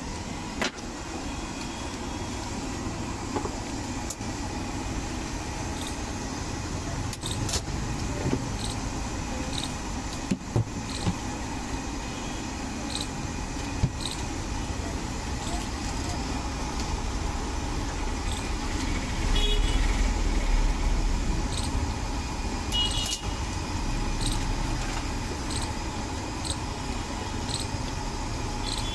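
Steady road traffic noise with scattered sharp clinks and knocks. A low vehicle rumble swells louder about two-thirds of the way through.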